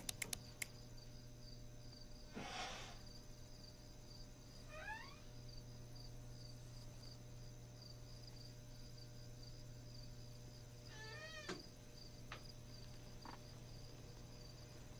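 Crickets chirping steadily in a quiet night ambience over a low hum, with a soft rush about two and a half seconds in. Two faint animal-like cries with gliding pitch come about five seconds in and again near eleven seconds.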